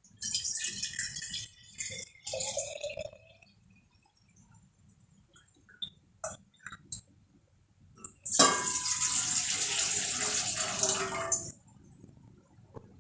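Water running and splashing, in two short spurts and then for about three seconds. A few light knocks come in between.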